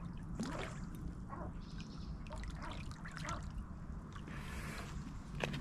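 Lake water splashing and trickling in short, irregular bursts as a hooked carp is brought in to the landing net, over a steady low rumble.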